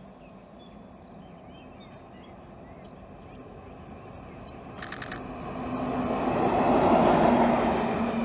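ÖBB Class 2068 diesel-hydraulic shunting locomotive running light past, its engine and wheels on the rails growing steadily louder as it approaches, loudest about seven seconds in, with a steady engine hum coming in over the last few seconds.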